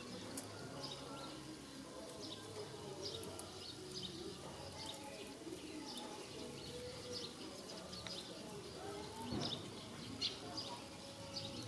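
Faint, scattered short high chirps and squeaks from small animals, over a low steady background hum.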